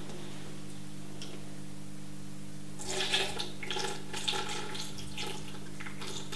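Water poured from a glass into a blender jar onto chopped tomatoes: a splashing trickle starting about three seconds in and lasting a couple of seconds. A steady low hum runs underneath.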